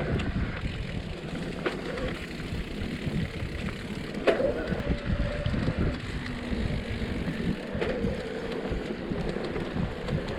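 Mountain bike riding over a dirt trail: a steady rough rumble of tyres on dirt and rocks with wind on the microphone, broken by a few sharp clacks of the bike jolting over bumps, the loudest a little after four seconds in.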